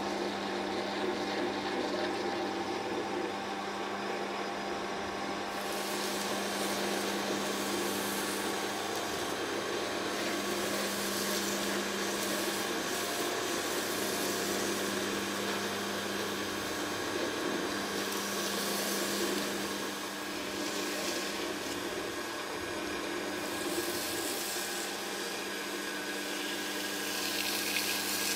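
Optimum metal lathe running with a steady hum while a hand file and abrasive cloth are held against the spinning metal cone, adding a scraping hiss that comes in about six seconds in and comes and goes after that.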